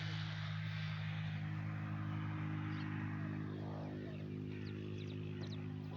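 A motor or engine running steadily at an unchanging pitch, with a few faint bird chirps near the end.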